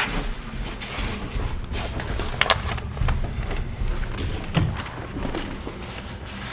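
Footsteps going down carpeted stairs and onto a carpeted floor: uneven dull thumps with a few sharper knocks, over low handling rumble.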